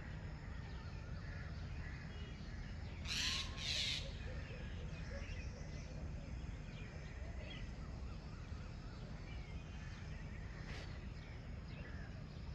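Two harsh cawing calls in quick succession about three seconds in, over a steady low outdoor rumble with faint bird chirps.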